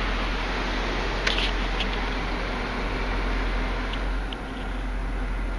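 Steady rushing noise of an automatic car wash heard from inside the car's cabin, with a few faint clicks and a slight drop in level about four seconds in.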